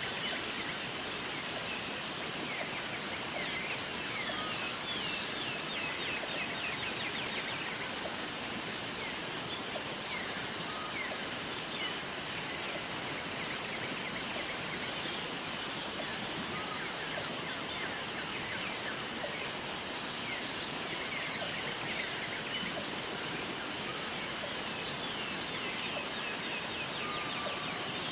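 Jungle ambience: the steady rush of a waterfall with many birds chirping over it, and a high buzz that comes and goes in stretches of two to three seconds.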